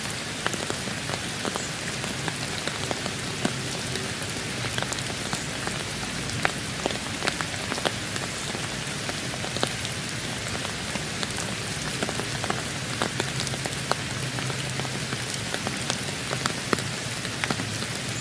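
Steady rain falling, an even hiss with many sharp, irregular drip and drop impacts on a hard surface.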